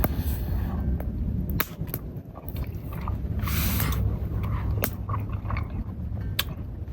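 Strong wind buffeting the microphone in a steady low rumble, with a few sharp clicks and a short hiss about three and a half seconds in.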